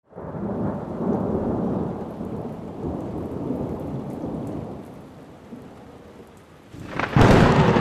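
Thunder rumbling over rain, slowly fading, then a sudden loud thunderclap about seven seconds in.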